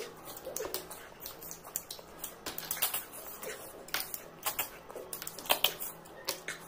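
Close-up mukbang eating sounds: irregular crisp clicks and smacks of a mouth chewing, about two a second.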